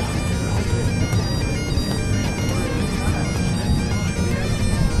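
A steady drone of several held tones over a low rumble.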